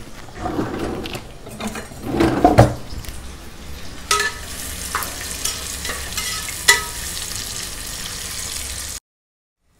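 Sliced onions sizzling in hot oil in a pressure cooker as they fry until soft, stirred with a metal slotted spoon that scrapes the pan. A few sharp, ringing clinks of the spoon against the pot come midway, and the sound cuts off abruptly to silence just before the end.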